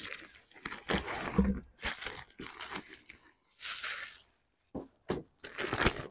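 Thick clear plastic bags wrapped around new leather boots crinkling and rustling in irregular bursts as the boots are pulled out of their cloth boot bag.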